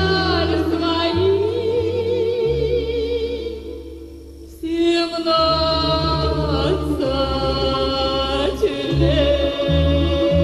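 Music: the closing section of a pop song, long held notes with vibrato over a backing track with a steady bass line, dropping away briefly near the middle before resuming.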